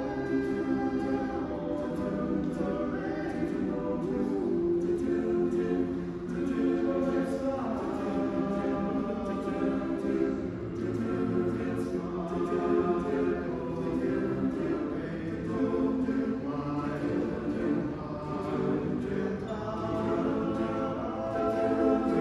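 Mixed a cappella choir of men's and women's voices singing in harmony, with sustained chords that keep moving.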